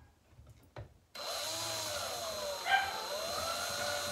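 Cordless drill/driver starting about a second in and running steadily on a hinge screw, its motor whine sagging in pitch and then recovering; it is set to reverse, so the screw backs out instead of driving in. A dog barks once, briefly, partway through.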